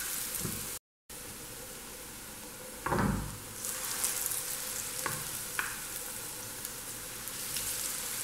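Besan-coated potatoes deep-frying in hot oil in a pan: a steady sizzle, with a brief break in the sound about a second in. About three seconds in there is a thud, and later a few light clicks of the spoon against the pan.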